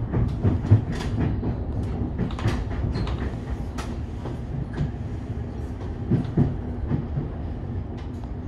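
Siemens suburban electric train heard from inside the carriage, rolling over the station approach. A steady low rumble is broken by irregular clicks and clunks as the wheels cross rail joints and points.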